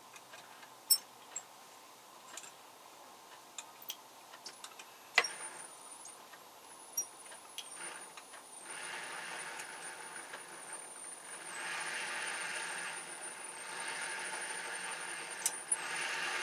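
Cordless drill driving the threaded rod of a homemade bottle-cutting jig: a few clicks and knocks, then a knock about five seconds in as a thin high whine starts. A steady motor hum comes in a few seconds later and grows louder toward the end.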